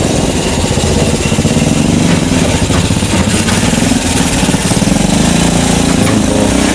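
Motorcycle engine running steadily, close and loud, with a fast even pulse.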